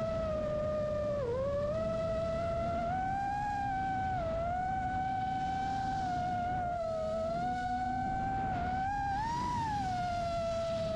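The motors and propellers of a custom 5-inch FPV quadcopter whine steadily, the pitch gliding up and down with throttle, with a rumble of wind buffeting the onboard microphone underneath.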